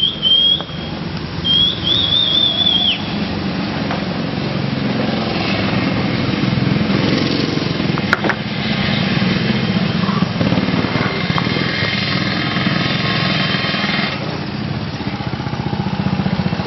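Small go-kart engines running around the track, a steady low buzz, with one kart's engine whining louder from about eight seconds in until about fourteen. A high warbling squeal sounds twice in the first three seconds.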